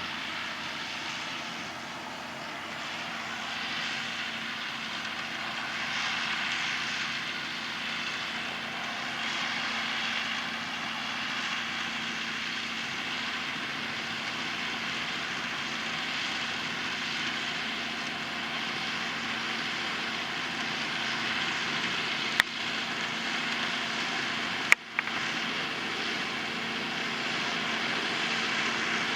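John Deere 6830 tractor pulling a Grimme SE 150-60 potato harvester, its engine and the harvester's machinery running in a steady drone. Two short sharp clicks come about 22 and 25 seconds in.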